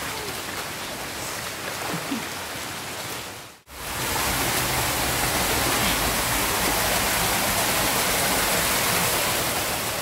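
Steady rushing of a spring-fed stream, with a sudden brief drop-out about three and a half seconds in, after which it is louder.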